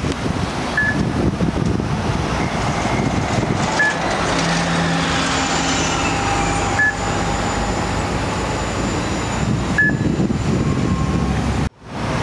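MTA city buses running in street traffic: engine rumble and road noise, with a steady drivetrain whine as a bus pulls away from the curb. A short high beep repeats about every three seconds.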